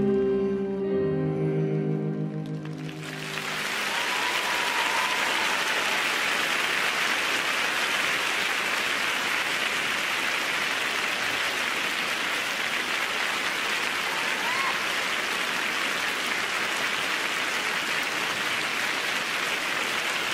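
The closing notes of the program music fade out about three seconds in, giving way to sustained applause from a large arena crowd.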